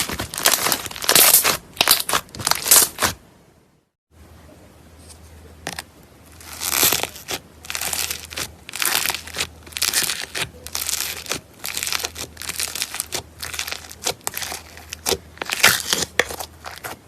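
Hands squeezing and stretching slime: a dense, irregular run of sticky crackles and pops. Between three and four seconds in the sound drops out for about half a second, then resumes with a faint low hum underneath.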